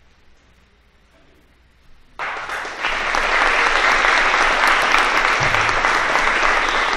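Audience applauding, breaking out suddenly about two seconds in and continuing steadily and loudly.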